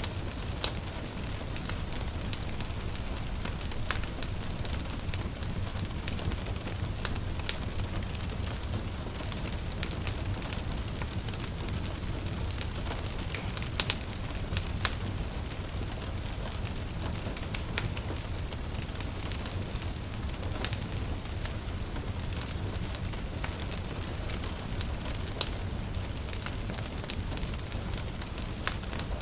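Wood fire crackling, with irregular sharp pops over a steady low rumble and a soft rain hiss in the background.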